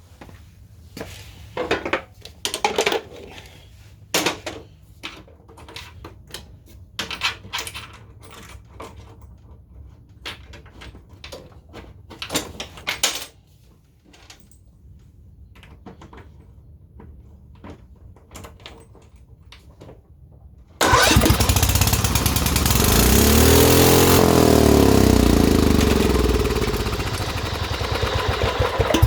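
Scattered clicks and knocks of handling, then about two-thirds of the way in a Kohler Command 13 lawn mower engine starts abruptly and runs loudly, its speed climbing and then sagging before it stops at the end. The governor is not holding the engine's speed, a sign that the governor arm is still set wrong.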